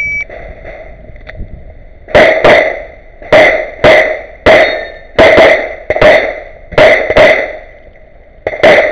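A shot timer's beep at the start, then about eleven pistol shots from a 9×19 STI competition pistol loaded to major power factor, fired mostly in quick pairs with pauses between targets, the last one near the end.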